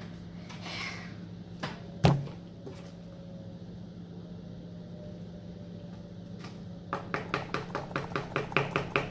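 A single sharp knock, then a quick run of light clicks or taps, about five a second, near the end, over a low steady hum.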